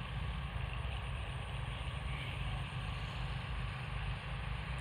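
Small single-cylinder Honda GX160-type engine of a water pump, running steadily on LPG from a 3 kg gas cylinder: an even, unbroken low drone.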